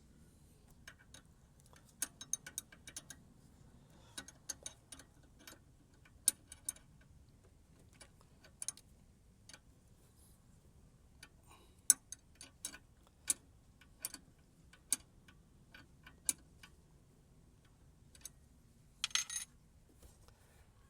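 Irregular sharp metallic clicks and ticks, some in quick clusters, from hand work on an A/C service-port retrofit adapter being fitted and tightened, with a brief rattle near the end.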